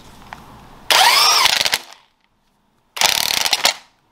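Power tool motor spinning up and back down in two short, loud bursts, with a sudden cut to dead silence between them.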